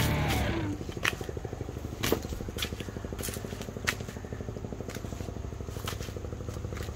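Background music fades out in the first second, leaving an engine running steadily with a fast, even pulse. A few sharp clicks sound now and then over it.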